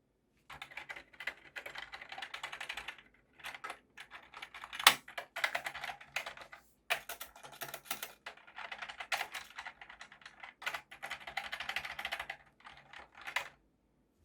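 Typing on a cleaned and reassembled vintage mechanical keyboard: rapid runs of key clicks broken by short pauses, with one louder clack about five seconds in.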